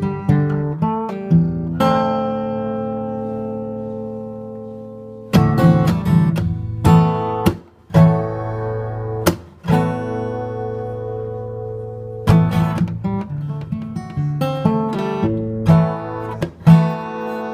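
Acoustic guitar strummed. Early on, a chord is left to ring and fade for about three seconds; strumming resumes, a second chord rings out for a couple of seconds around the middle, and strumming continues to the end.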